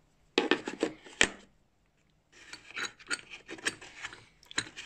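Metal adapter fittings and a bent metal filler tube from a transmission oil filler kit being handled in a hard plastic carrying case: clicks and scraping of metal on plastic. A short burst with one sharp click, a pause of about a second, then steady scraping and clicking.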